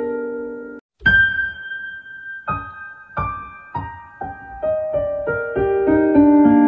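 Piano music: a held chord fades and cuts out briefly, then single notes are struck one by one in a falling line, building into fuller, louder chords near the end.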